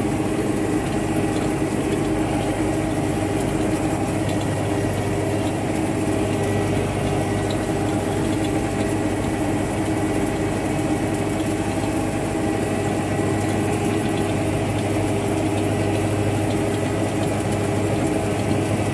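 Tractor diesel engine running steadily while pulling a seed drill during soybean sowing.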